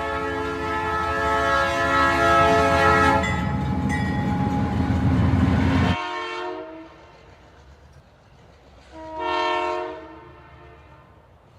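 Train horn sounding a long multi-tone blast, joined by a loud rushing noise of a train that stops abruptly about 6 seconds in; a second, shorter horn blast follows about 9 seconds in.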